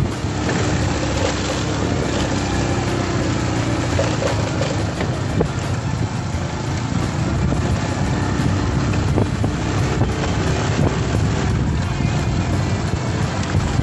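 Motorcycle riding along a dirt road: steady engine and road noise, with wind on the microphone.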